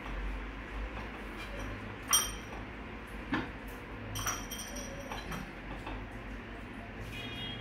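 Hands working marinade into whole fish on a ceramic plate, with a few light clinks of crockery, the sharpest about two seconds in, over a low steady hum.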